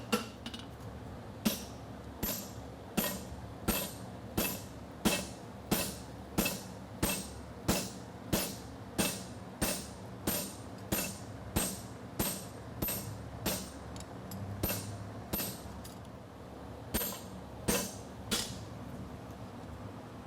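Farrier's hammer striking a hot steel bar shoe on an anvil in a steady rhythm, about one ringing blow every 0.7 seconds, as the toe is turned around the anvil. After a short pause near the end, three more blows land.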